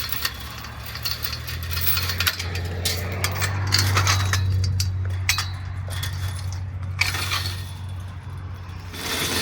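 A vehicle engine running with a steady low drone that swells in the middle, while metal clinks and rattles sound over it.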